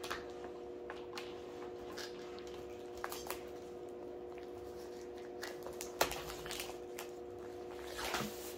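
Handling of a sealed cardboard laptop box: faint taps and clicks, one sharper click about six seconds in, then a crackling rustle near the end as the clear plastic shrink-wrap is pulled off by its tab. A steady low hum runs underneath.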